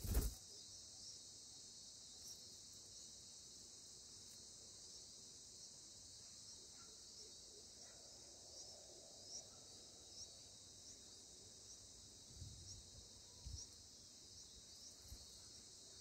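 Steady high-pitched insect chorus, crickets or similar, with many faint short chirps in it. A sharp knock right at the start is the loudest sound, and a few soft low thumps come near the end.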